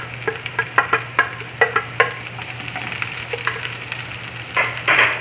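Vegetables tipped into hot oil in a non-stick frying pan sizzle, with a string of sharp clicks and knocks in the first couple of seconds as the pieces land and a wooden spatula scrapes them off the plate. A louder swell of sizzling comes near the end, over a steady low hum.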